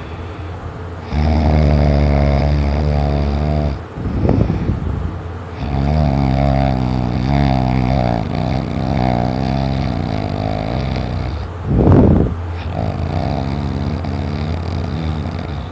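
Heavy, loud snoring: long rattling snores of several seconds each, with short loud breaths between them, the loudest about twelve seconds in.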